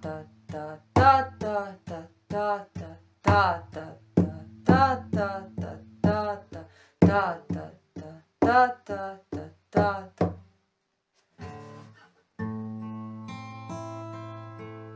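Acoustic guitar: the song's strumming rhythm tapped out as short, sharp strikes on the strings in an uneven repeating pattern. After a short pause near 11 s, a chord is picked note by note in a slow fingerpicking pattern, with the notes left ringing.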